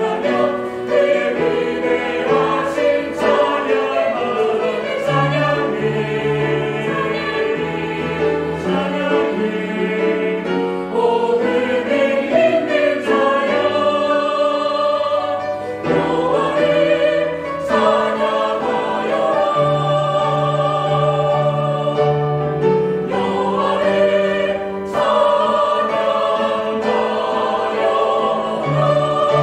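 Mixed church choir singing a Korean praise anthem in held, sustained chords, on words from Psalm 150: "let everything that has breath praise the LORD."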